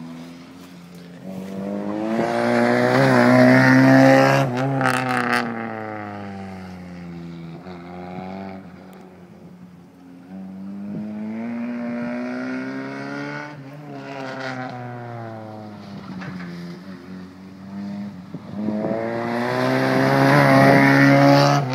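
Unmuffled 1993 Ford Festiva four-cylinder engine (muffler deleted) revving up and down as the car drives laps. Its pitch climbs and falls again and again, and it grows loud three times as it passes close: a few seconds in, around the middle, and near the end.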